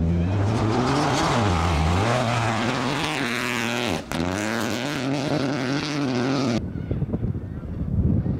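Rally car engine revving hard on a gravel stage, its pitch climbing and dropping repeatedly with gear changes and throttle lifts, while stones and gravel spray from the tyres. About six and a half seconds in it cuts off abruptly to a quieter scatter of crunching and wind.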